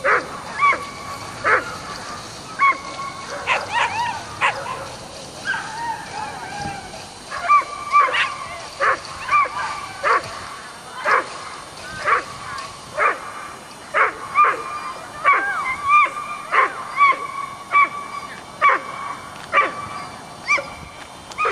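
A dog yipping and barking over and over, short high calls about one to two a second, with a faint steady high whine beneath.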